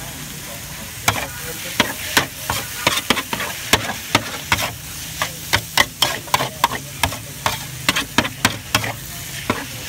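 Food frying in a pan with a steady sizzle while a utensil stirs it, striking the pan in sharp strokes about three times a second from about a second in.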